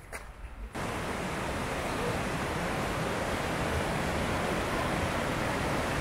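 Steady rushing of a waterfall, Bow Falls on the Bow River, cutting in suddenly under a second in.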